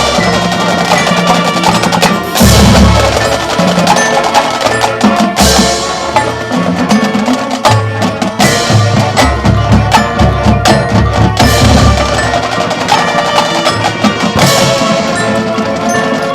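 High school marching band playing: drums and mallet percussion (bells and xylophone) over held low notes, with several cymbal crashes.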